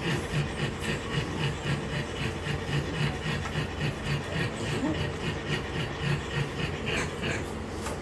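French bulldog puppy scratching itself against a shaggy fabric mat: a steady rhythmic rasping of about five strokes a second that fades near the end.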